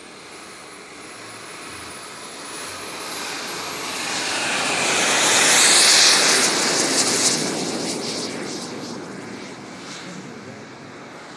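Radio-control model jet's turbine passing close by: a high whine and rushing jet noise that swell to a peak about six seconds in, drop in pitch as it goes past, then fade away.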